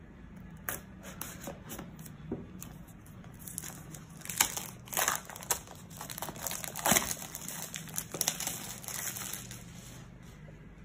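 Clear plastic shrink-wrap being slit with a small knife and peeled off a cardboard box. It crinkles and tears in irregular bursts, loudest in the middle.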